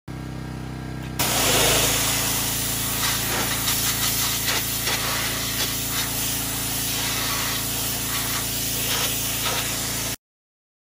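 Pressure washer running, its motor or pump humming steadily. About a second in, the trigger opens and a high-pressure water jet hisses onto the bulldozer's metal, its texture shifting as the spray moves over the surfaces. The sound cuts off abruptly near the end.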